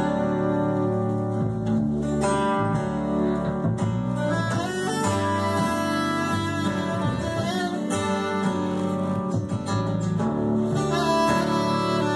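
Live band playing an instrumental passage: a soprano saxophone playing held, gliding lines over strummed acoustic guitar and upright bass.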